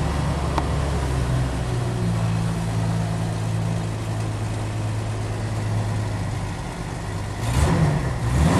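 Jeep YJ engine idling from inside the cab just after a cold start at about −14 °C, running a little rough. Its note changes about two seconds in, and near the end it is revved briefly twice.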